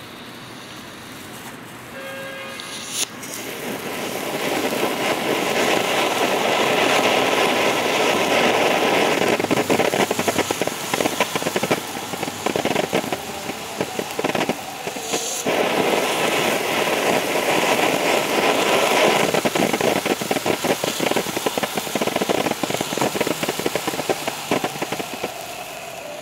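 Fireworks fountain battery going off: after a sharp click about three seconds in, a loud rushing hiss of spraying sparks thick with fast crackling, briefly changing about halfway through before carrying on.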